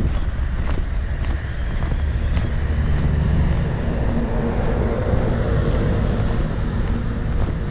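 A motor vehicle passing close by, its engine-and-tyre rumble swelling and then fading, with footsteps on pavement.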